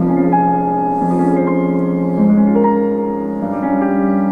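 Piano music playing from a Tivoli Audio Model One table radio's single speaker on an FM station, slow held notes and chords with no crackle. The scratching that dust in the contacts had caused has been cured with contact cleaner.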